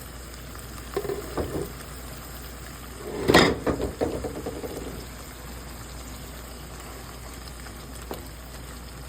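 String beans and pork in sauce boiling in a covered pan: a steady bubbling hiss. A few light knocks come about a second in, and a loud clatter about three seconds in.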